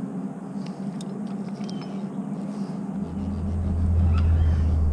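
Low, steady engine hum, joined about three seconds in by a much louder, deeper rumble that holds steady, with a few faint high chirps over it.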